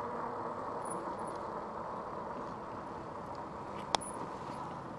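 Steady tyre and wind noise from an e-bike cruising over asphalt, with one sharp click about four seconds in.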